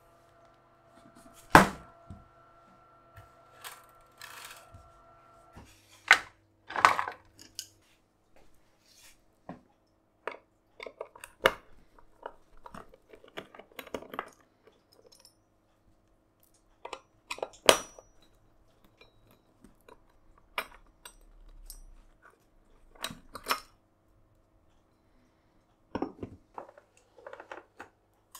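Hand tools and small metal parts being handled on a workbench: irregular clicks, taps and clinks, a few of them sharper knocks. A faint steady ringing tone lies under the first few seconds and stops about five seconds in.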